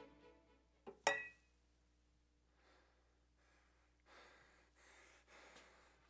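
A click and then a short metallic clank with a brief ring about a second in, as the frying pan is knocked against the portable stove's hot plate. After that, only faint breaths.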